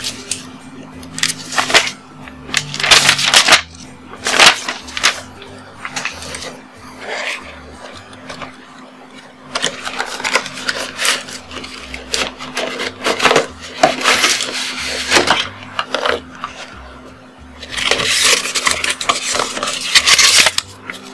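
Paper and cardboard packaging being handled: repeated rustling and scraping of a paper sheet and the webcam's cardboard box and tray, heaviest a couple of seconds in, again from about ten to fifteen seconds, and near the end, over a faint steady hum.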